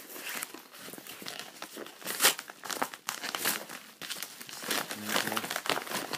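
Packaging being opened and handled by hand: irregular crinkling and rustling with some tearing, loudest in a sharp crackle about two seconds in.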